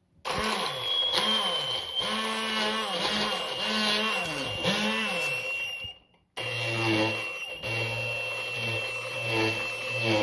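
Stick blender running in a plastic beaker, blending basil, pecans, parmesan and garlic for pesto. Its motor pitch dips again and again as it works through the mix. It stops briefly about six seconds in, then starts again.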